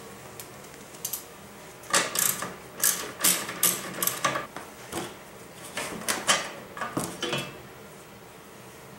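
Irregular sharp metallic clicks and clatters, some in quick clusters, from about a second in until near the end: a ratchet wrench working the bolts off the radiator's top bracket.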